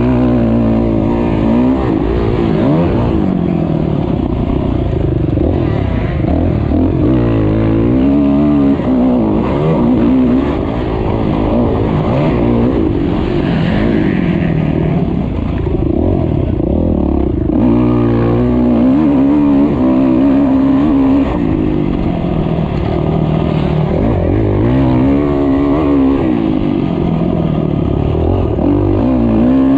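Motocross bike engine heard from on board, revving up hard and dropping off again and again as the rider works the throttle and gears around the track.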